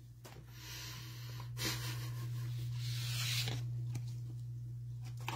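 Trading cards and rigid plastic toploaders handled in gloved hands, making soft sliding and rustling noises in a few swells over a steady low hum.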